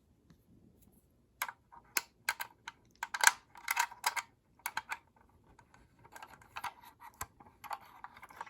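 Irregular plastic and metal clicks and clacks of Fire-Lite BG10 fire alarm pull stations being handled and closed up, the hex-key lock being turned.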